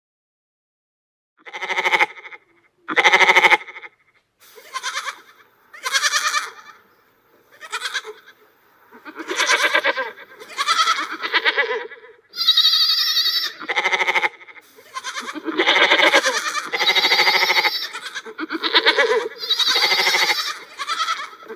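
Goats bleating, more than a dozen separate calls one after another, starting about a second and a half in.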